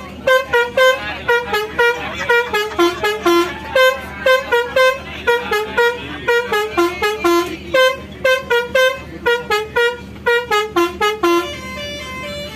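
Bus 'telolet' musical air horn playing a quick tune of short notes, about three or four a second, stepping up and down in pitch.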